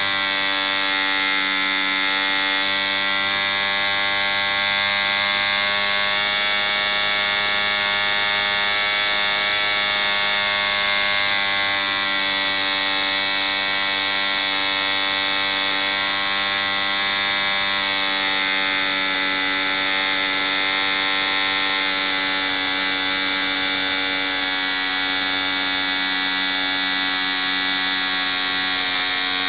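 ED 3.46 Hunter 3.46 cc model diesel engine running steadily on a test stand, turning an 11x6 Top Flite wooden propeller at about 6000 rpm. Its pitch wavers slightly a few times.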